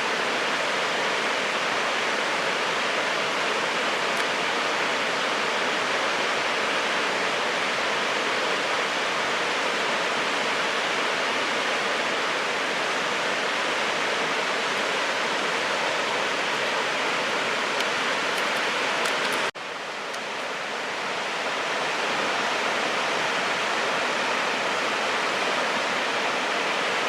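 Steady rushing of a creek's flowing water. It drops out sharply about two-thirds of the way through and swells back over a couple of seconds.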